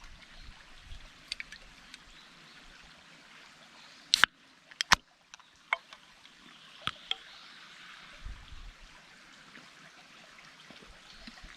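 Steady running-water sound with a few sharp clicks and knocks, the loudest a quick cluster about four to five seconds in.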